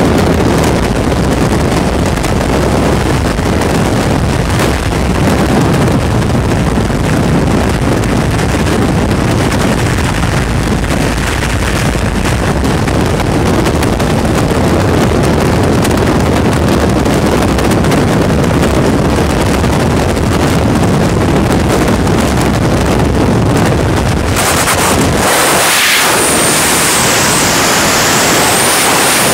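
Freefall wind rushing over a skydiver's helmet-camera microphone, a loud steady roar. Near the end the low rumble drops away and a thinner, higher hiss takes over.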